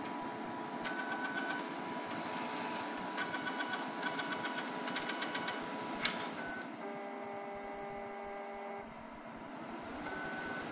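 Sony UY-S100 film scanner's motors drawing a film strip into the carrier: stretches of fast, even mechanical ticking with a buzz, a sharp click about six seconds in, then a steady pitched motor whine that pauses briefly and starts again near the end.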